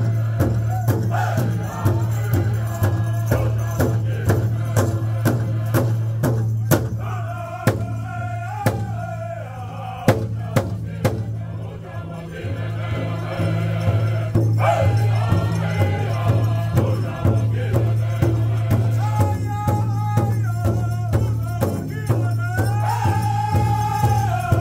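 Powwow drum group singing a song in high voices over a large drum struck in a steady beat, with more voices joining from the circle around the drum. The drumming and singing drop lower for a few seconds about halfway through, then build again.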